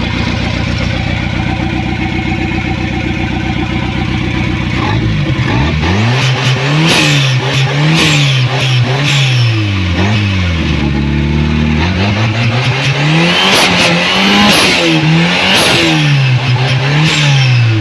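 Turbocharged Ford CHT four-cylinder engine idling steadily, then from about five seconds in revved up and down over and over.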